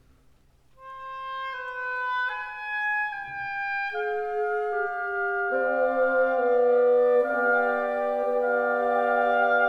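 Background music: a slow melody of held notes on a single wind instrument, starting about a second in, joined by sustained lower notes about halfway through.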